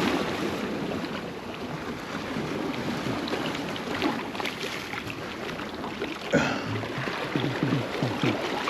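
Surf washing against a rock jetty, with some wind on the microphone and a few scattered clicks; a sharper knock comes about six seconds in.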